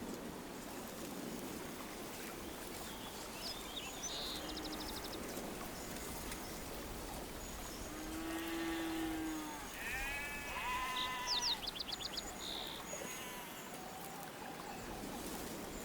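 Rural outdoor ambience: a steady background hiss with a sheep bleating twice in the middle, and short bird chirps and rapid trills now and then.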